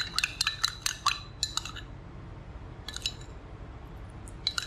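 Metal spoon stirring a little liquid in a glass bowl, clinking quickly against the glass for about two seconds, then two brief clinks near the end.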